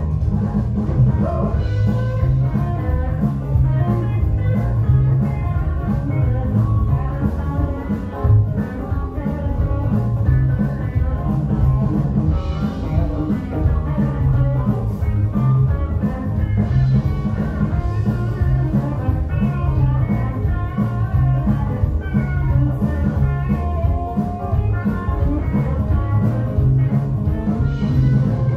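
Live pop-rock band playing through a PA: drum kit, bass guitar, electric guitar and keyboards in a steady beat.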